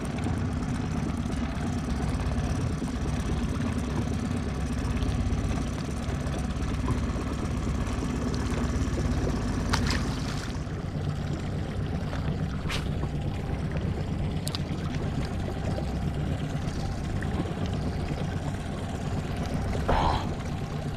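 Boat motor running steadily, a low even hum, with a few short clicks about halfway through.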